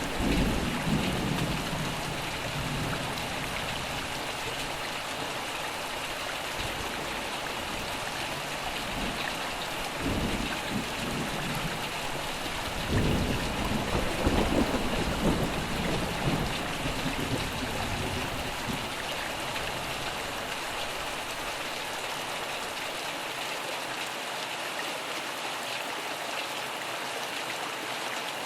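Steady heavy rain falling, with rolls of thunder rumbling at the start, again about ten seconds in, and a longer, louder roll a few seconds later that fades out well before the end.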